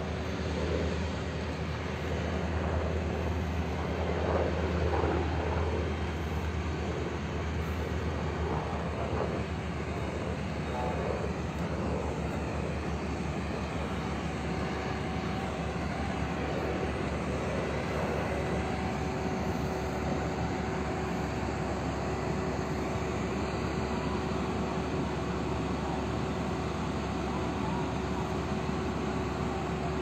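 Firefighting aircraft's engine droning steadily overhead, with a constant low hum; a steady tone holds through the second half.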